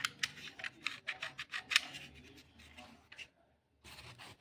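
A quick run of sharp clicks and snips, about a dozen in the first two seconds, then sparser and quieter, with a brief silence a little after three seconds in.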